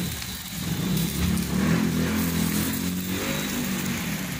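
A motor vehicle engine running nearby: a low hum that swells about a second in, shifts pitch slightly and eases off, like a vehicle passing on the road. Under it, chicken fat faintly sizzles on the glowing charcoal.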